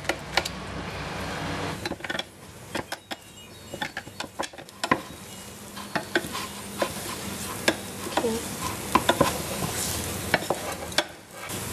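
Wooden spoon stirring thick choux pastry dough in a stainless steel saucepan, with irregular knocks and scrapes against the pot, over a sizzle from the dough cooking on the heat. It is the stage where the dough is worked until it pulls away from the sides of the pan.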